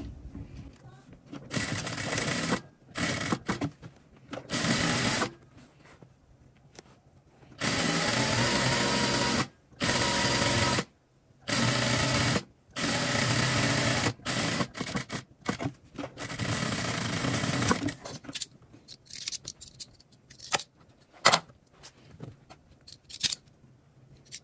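Sewing machine stitching a seam that joins two waistband pieces, running in stretches of half a second to a few seconds with short stops between. In the last several seconds it is stopped, leaving only scattered light clicks.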